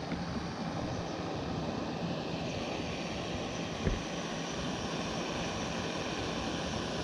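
Small gas canister stove burning on low flame under an aluminium mess tin as rice starts to cook: a steady hiss, with one light knock about four seconds in.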